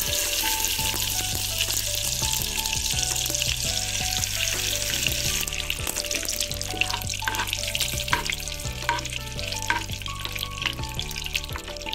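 Butter sizzling and foaming as it melts in a hot pan, with a spoon stirring it around. The sizzle is strongest in the first half and eases off after about five seconds.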